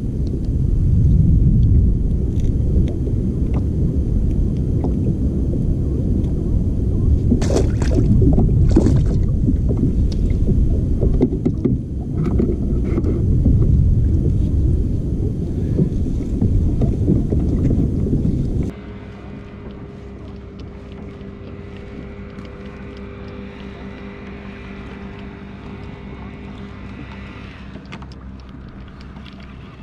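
Wind and water noise on an open kayak at sea: a loud, uneven low rumble, with two sharp knocks of handling about seven and nine seconds in. About two-thirds of the way through it drops suddenly to a quieter steady hum with faint steady tones.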